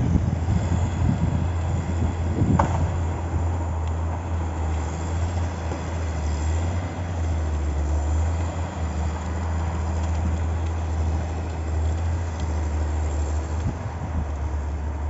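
Diesel engine of a Caterpillar log skidder running steadily with a low, even hum, and a single sharp knock about two and a half seconds in.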